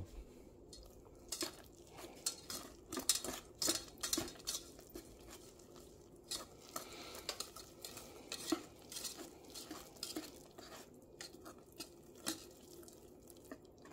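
Wire whisk beating thick waffle batter in a stainless steel mixing bowl, its wires clinking and scraping against the bowl in quick, irregular strokes.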